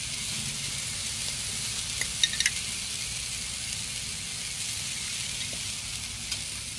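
Beef burger patty and buttered buns sizzling on a Blackstone flat-top griddle, a steady hiss. A few light clicks come about two seconds in.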